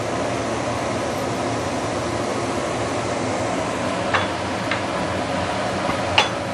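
Chili-paste broth boiling hard in a stainless steel wok just after hot water went in: a steady bubbling hiss. Three sharp clicks come in the second half, the last the loudest.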